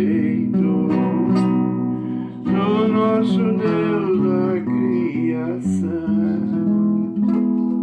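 Closing bars of a song: plucked string instruments strumming chords with a wavering melody line over them, settling about seven seconds in onto a long held final chord.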